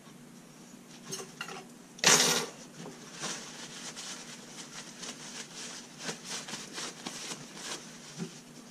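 Paper towel crinkling and rustling in the hands as a freshly silver-soldered steel buckle is wiped, with small clicks of metal being handled. There is one loud, short burst of noise about two seconds in, then a run of smaller crinkles and clicks.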